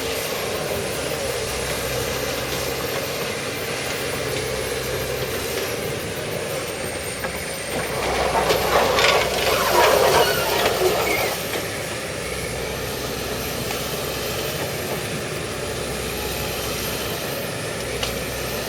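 Excavator's diesel engine running steadily, with a louder, rough clattering stretch about eight to eleven seconds in.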